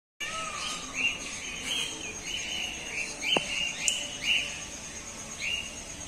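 Many small birds chirping: short, repeated calls come a few times a second, with a steady high-pitched drone behind them.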